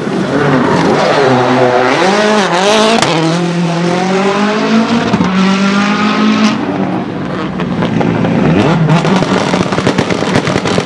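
Citroen C4 WRC rally car's turbocharged four-cylinder engine revving hard, its pitch climbing and dropping sharply with throttle lifts and gear changes. After a break, a stationary Skoda Fabia WRC's engine is blipped, its revs rising near the end.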